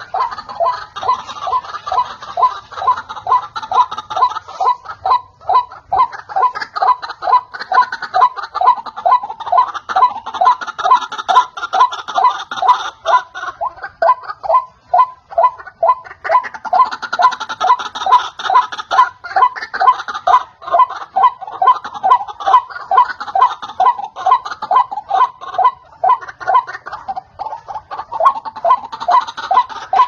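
White-breasted waterhen calling: a long, unbroken run of repeated calls, about two to three a second.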